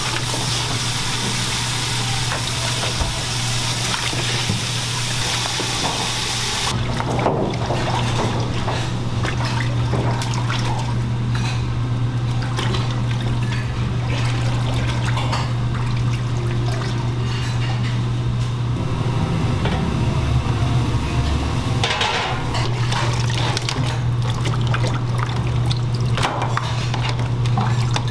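Water from a sink sprayer running and splashing onto beef ribs in a stainless-steel sink as they are rinsed. The spray drops off about seven seconds in, leaving small wet knocks and clatter as the ribs are handled, over a steady low hum.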